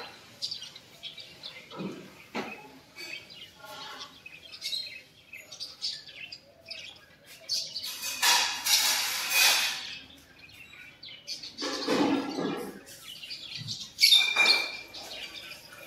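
Small birds chirping and tweeting repeatedly, with a brief louder rushing noise about halfway through.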